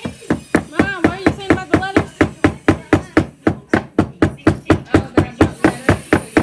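Rapid, even knocking on a hard surface, about five knocks a second without a break. A voice is heard briefly over the knocking about a second in.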